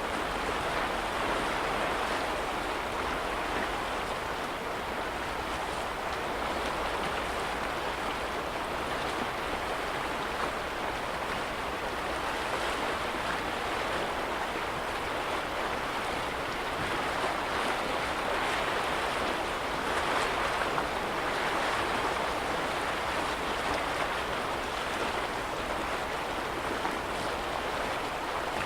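Small lake waves washing against the shore: a steady wash of water that swells a little now and then.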